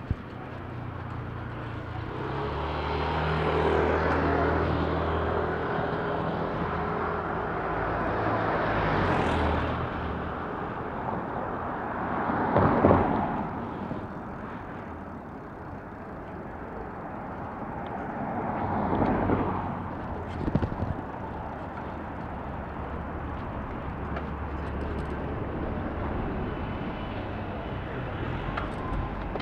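City street traffic: motor vehicles pass one after another, each swelling and fading, the loudest about twelve and nineteen seconds in, with a low engine drone for a few seconds near the start.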